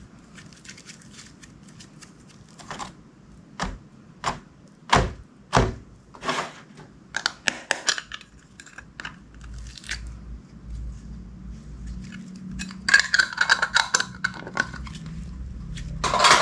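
Hands working clear slime: a run of sharp, separate pops and clicks, then two stretches of dense crackling near the end.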